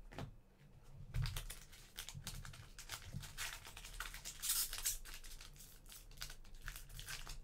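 A Panini Mosaic soccer card pack being crinkled and torn open and its cards handled: a run of short crackles and clicks starting about a second in, with a longer tearing rustle near the middle.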